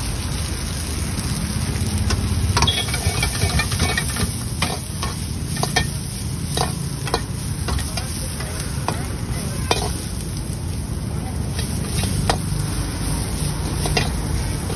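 Steel ladle scraping and clanking against a black iron wok as chopped vegetables are stir-fried over high heat, with a steady sizzle. The ladle strikes come every half second or so, over a steady low rumble.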